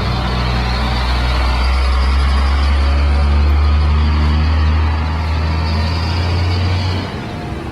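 Motor vehicle running: a steady low engine rumble with road and wind noise, which eases off near the end.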